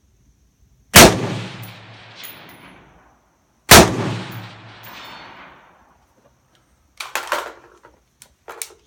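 Two rifle shots from a military rifle about two and a half seconds apart, each echoing out for about two seconds. Near the end, a few quick metallic clicks and clatter.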